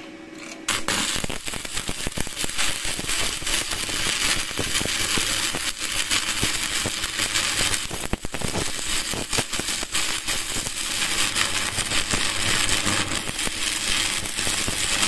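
Stick (MMA) arc welding from a Spark 400 MMA DC inverter welder: the electrode arc strikes about a second in and then burns with a steady, dense crackle and sputter, faltering briefly about eight seconds in.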